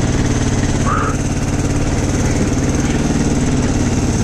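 Linhai 300 ATV's single-cylinder engine running at a steady speed, with a brief high squeak about a second in.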